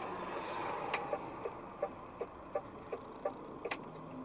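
Road and engine noise inside a moving vehicle's cab, with a regular ticking at about three ticks a second starting about a second in.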